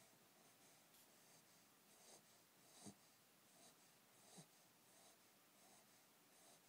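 Faint, regular snoring breaths of a sleeping Pembroke Welsh corgi puppy. Two louder snores come about three and four and a half seconds in.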